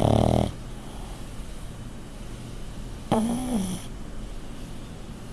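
Pug snoring in deep sleep: two loud snores, one right at the start and another about three seconds in, the second with a brief pitch that rises and falls.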